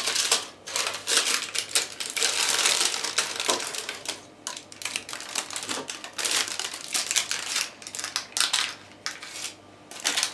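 Sheets of baking parchment crinkling and rustling as they are handled and peeled away from a baked pie. The sound is a string of quick crackles with brief lulls about four seconds in and again near the end.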